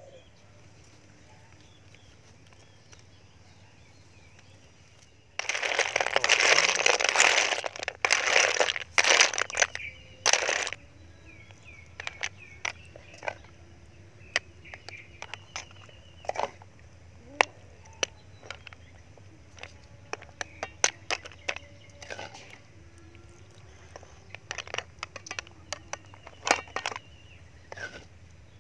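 Snails and aromatics tipped into a hot frying pan over an open fire: a loud burst of sizzling and shells clattering about five seconds in, lasting about five seconds with short breaks. Afterwards scattered sharp clicks and crackles from the shells heating in the pan.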